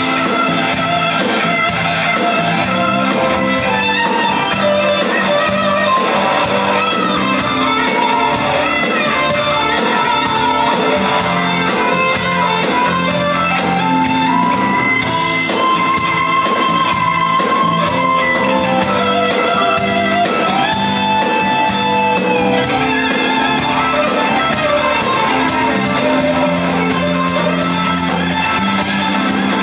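Live blues-rock band playing an instrumental passage with no singing: an electric guitar takes the lead with long held notes, bends and vibrato over the band's steady backing.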